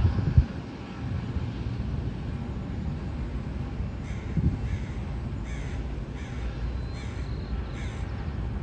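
A crow cawing about five times, roughly a second apart, in the second half, over a steady low rumble. A couple of low thumps right at the start.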